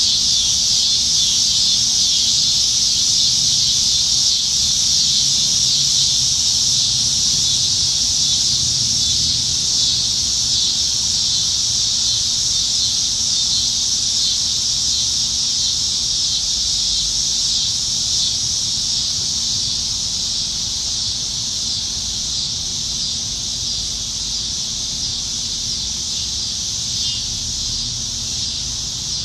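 A dense chorus of cicadas in the trees, a steady, continuous high-pitched buzz that eases off slightly in loudness toward the end.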